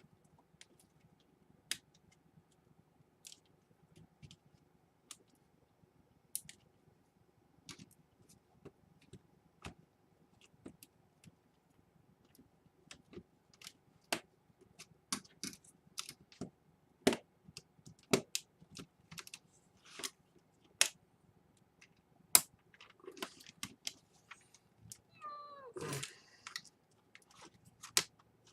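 Clicks and taps of plastic and metal laptop parts being handled during disassembly, scattered at first and coming several a second in the second half. Near the end a short pitched sound wavers up and down for about a second.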